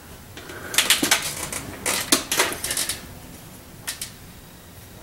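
Bursts of sharp clicking and clattering from intake manifold gaskets being handled and fitted onto the cylinder heads of a small-block V8.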